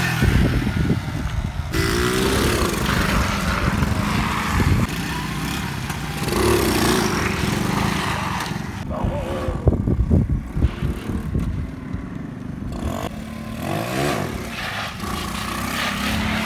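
Small motorcycle engines running and revving up and down again and again, as a rider throttles up for wheelies, over a steady low rumble of wind and road noise.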